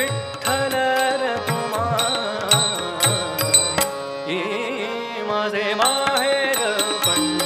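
Indian devotional music: a male voice sings a long, winding melodic line, accompanied by tabla and small hand cymbals striking a steady beat.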